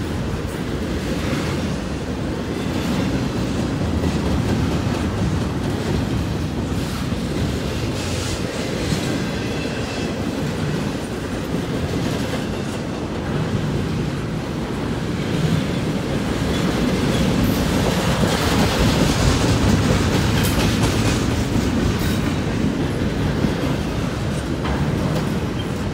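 Double-stack intermodal well cars of a freight train rolling past at speed: a steady rumble of steel wheels on rail, with the clickety-clack of wheels over rail joints.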